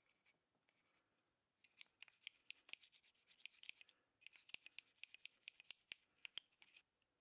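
Toothbrush bristles scrubbing a small clear plastic windshield: faint, quick scratchy brushing strokes in two runs, starting about two seconds in, with a short break in the middle.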